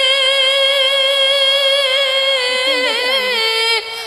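A woman singing an Urdu ghazal in tarannum style holds one long note. Near the end the note wavers, falls and breaks off.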